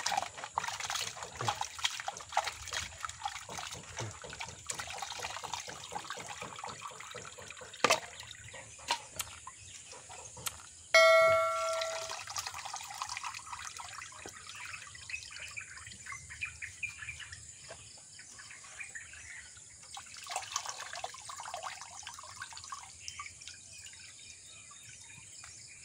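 Hands squeezing and rinsing chunks of raw pork in a basin of bloody water: wet squelching, splashing and dripping. About eleven seconds in, a short bell-like chime rings out, a pop-up 'subscribe' notification sound.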